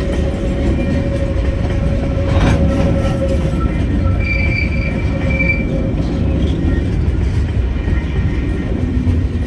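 Freight train container wagons rolling past: a loud, steady rumble of steel wheels on rail with a thin, steady wheel squeal throughout. There is a sharp clack about two and a half seconds in, and a higher squeal for a second or so around the middle.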